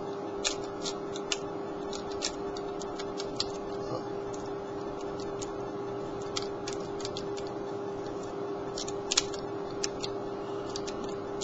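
Small, irregular metallic clicks of a Dyno Kwick Pick being raked back and forth, in and out, across the pins of a pin-tumbler door lock under light tension. A steady hum runs underneath.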